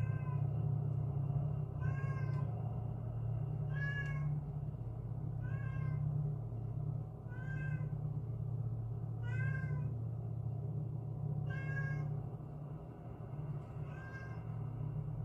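A cat crying, one meow about every two seconds, eight times, over a steady low rumble.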